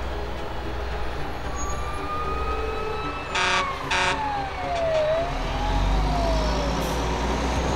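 Fire truck sound effects: a low engine rumble that grows louder about five seconds in, and two short horn blasts about three and a half seconds in. Over them runs a siren tone that slides down in pitch, briefly back up, and down again.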